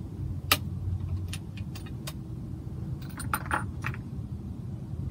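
Rifle bolt being worked by hand: a string of sharp metallic clicks and clinks, the strongest about half a second in and a quick cluster around three to four seconds, over a steady low rumble.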